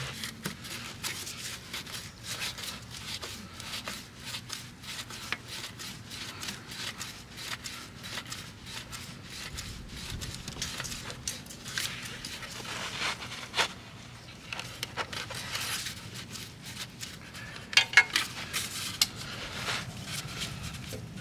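Hand-work noises under a motorcycle engine: rustling, light clicks and scrapes as a gloved hand works around the oil filter behind the exhaust headers, with a louder cluster of clicks about eighteen seconds in.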